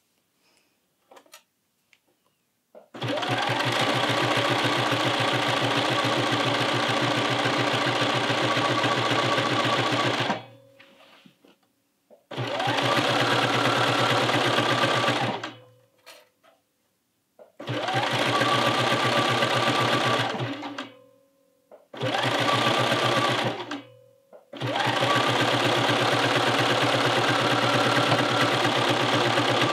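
Bernina electronic sewing machine stitching a knit neckband onto a T-shirt neckline, running at a steady speed in five runs, the first about seven seconds long, with short stops between them. A few small clicks fall in the pauses before the first run.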